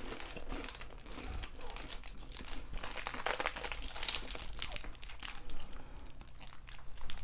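Food packaging crinkling and rustling as it is handled: a dense run of sharp crackles, thickest about three to four seconds in.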